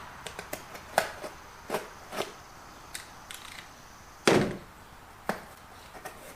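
A knife cutting and tearing open a cardboard mail package: scattered cracks, snaps and scrapes, with one louder thump a little past four seconds in.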